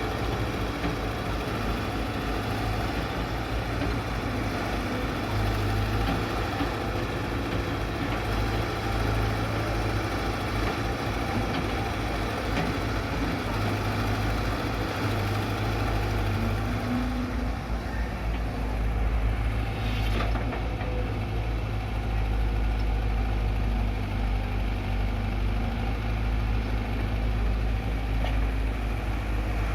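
Heavy diesel engines running steadily, from a CAT E120B excavator working and a truck standing by for loading, with a brief knock about twenty seconds in.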